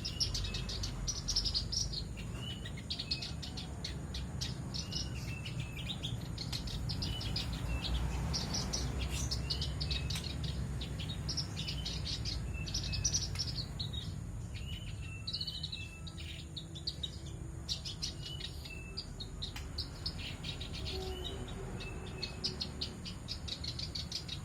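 Male black-browed reed warbler singing vigorously: bursts of rapid, chattering notes about a second long, repeated over and over with short pauses between them.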